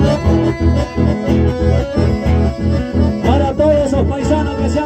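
Loud amplified band music for dancing, with a steady bass beat and guitar; a voice starts singing about three seconds in.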